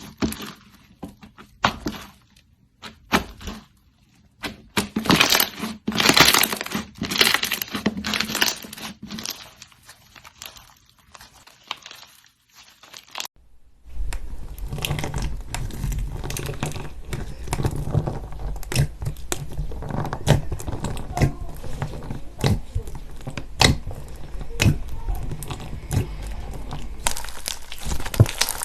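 Slime being squeezed and stretched, giving rapid irregular sticky clicks and pops. About halfway through the sound changes abruptly to a denser, steadier run of clicks with a low rumble under it.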